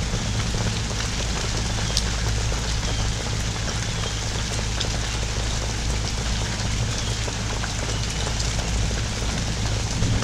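Steady pouring rain from a hurricane's outer band, a continuous even wash with scattered drops ticking, over a steady low rumble.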